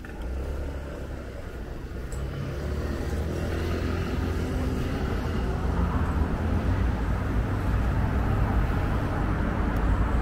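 Road traffic: a low, noisy rumble of passing motor vehicles that grows steadily louder.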